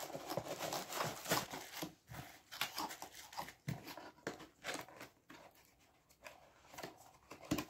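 Irregular rustling, crinkling and light clicks of handling as the repaired wireless speaker is packed back up.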